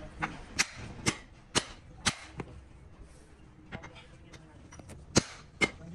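Sharp metal-on-metal hammer strikes on a steel truck brake shoe, about two a second: a run of five, a short pause, then a few more, the loudest near the end.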